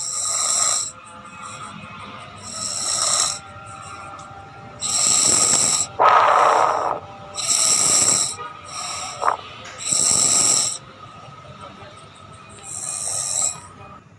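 Sleeping cat snoring: a series of high, hissing snore breaths every one to two seconds, each under a second long, with one lower, rougher snort about six seconds in.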